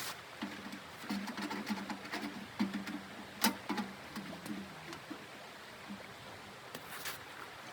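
Soft, low-pitched background music playing through the first five seconds, with a few sharp clicks, the loudest about three and a half seconds in.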